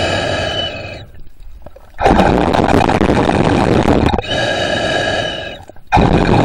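Slow, heavy breathing of the swimmer holding the camera, heard underwater through a breathing tube. Each breath cycle has a rough rushing exhale and an inhale with a steady whistling note, with a short lull between them. About two cycles are heard.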